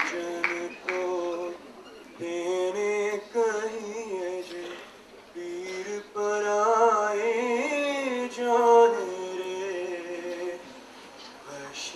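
Slow singing in long held notes with a wavering pitch, the melody gliding up and down, as the last applause dies away in the first second.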